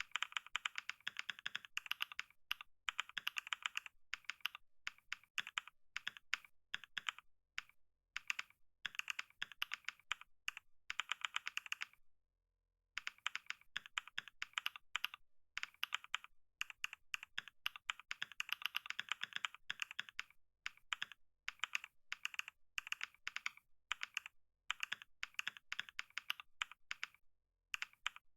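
Fast typing on a computer keyboard: rapid runs of keystroke clicks broken by short pauses, with a brief full stop about twelve seconds in.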